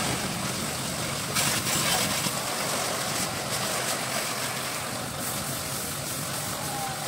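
Pressure washer running, its high-pressure water jet hissing against a car's wheel and underbody, with a steady motor drone underneath. The spray sounds sharper from about a second and a half in.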